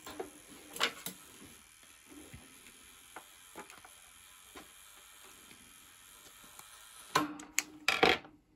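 Small plastic clicks and taps of a screwdriver working on a UK 13 A mains plug, opening it to get at the fuse that may have blown, with two louder clattering bursts near the end.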